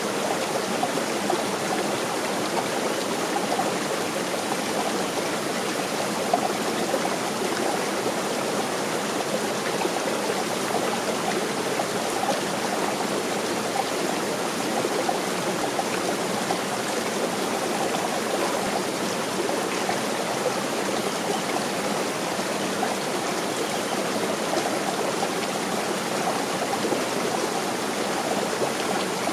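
Mountain stream running, a steady rush of water.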